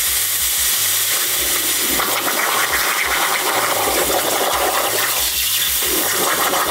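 ShopSabre CNC plasma torch cutting quarter-inch copper plate: a steady, loud hiss of the plasma arc and its air.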